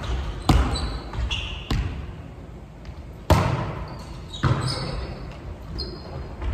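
A volleyball being hit four times in a rally, each a sharp slap echoing around a large gym hall, the loudest about three seconds in. Short sneaker squeaks on the wooden floor come between the hits.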